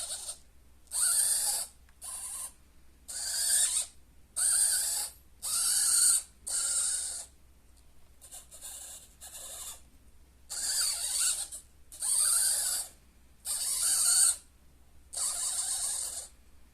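Small servo motors of a camera pan-tilt mount whirring in a dozen or so short, separate bursts as the camera is swung to new positions.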